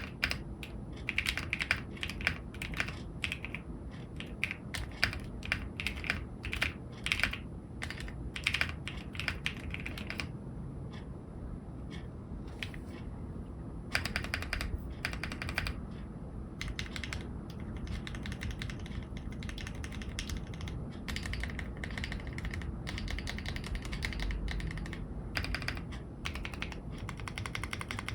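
Continuous fast typing on an AKKO ACR75 v2 mechanical keyboard with Kaisya switches: rapid keystroke clicks that thin out for a few seconds about ten seconds in, then pick up again.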